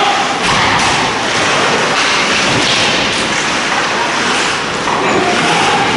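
Steady wash of ice hockey game noise in an echoing rink: skates on ice and indistinct voices from players and the bench, with a faint call near the end.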